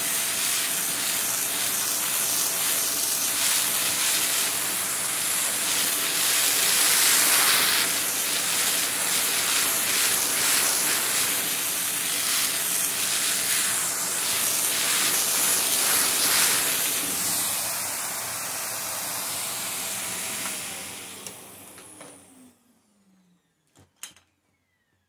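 Vacuum cleaner running on carpet, a steady loud suction hiss over a motor hum. It is switched off about 21 seconds in and the motor winds down in falling pitch, followed by two short clicks near the end.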